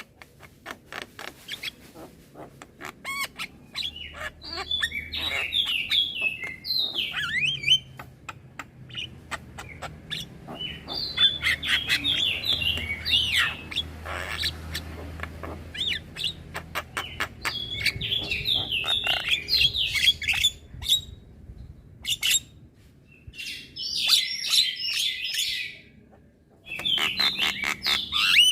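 Young Javan myna chattering its song in bursts of rapid, varied notes, mixed with many sharp clicks and broken by short pauses.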